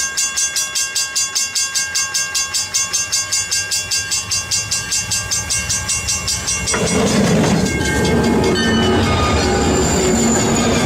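Train running with a regular pulsing about three times a second and steady tones over it, then about seven seconds in an abrupt change to a louder, rougher train rumble.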